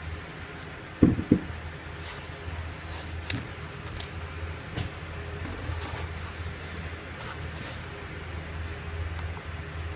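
Handling noises: two dull thumps close together about a second in, then a brief rustle and a few light clicks, over a steady low hum.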